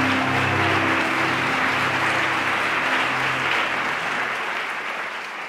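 Audience applauding, a dense, steady clapping that begins to fade away near the end. Low sustained notes of ambient music die out under it in the first few seconds.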